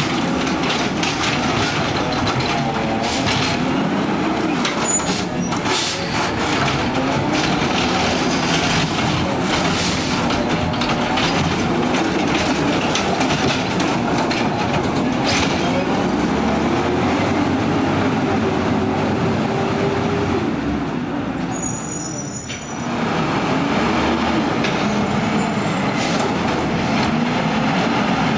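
McNeilus ZR side-loader garbage truck's natural-gas engine revved hard over and over, its pitch rising and falling, while the automated arm works. Several sharp bangs from carts and the arm come through the engine noise, and the engine drops off briefly about two-thirds through.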